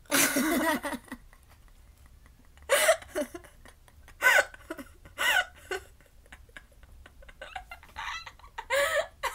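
Two girls laughing in separate short bursts, the loudest and longest right at the start, then several brief laughs with a wavering pitch.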